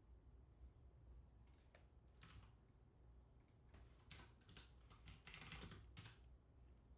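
Faint typing on a computer keyboard in irregular bursts of key clicks, starting about a second and a half in and quickest near the end, over a low steady hum.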